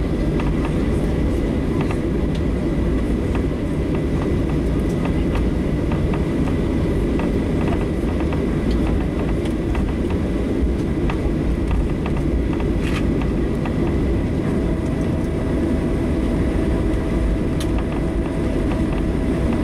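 Steady low rumble inside a Boeing 737-700 cabin as the airliner rolls out and slows on the runway after touchdown. A faint thin whine runs throughout, and a second, lower whine joins about three-quarters of the way through.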